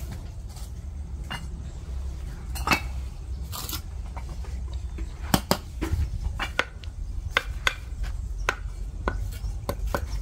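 Bricklaying with a steel trowel: scattered clinks, taps and short scrapes as the trowel picks mortar from a bowl and taps clay bricks into place, over a low steady rumble.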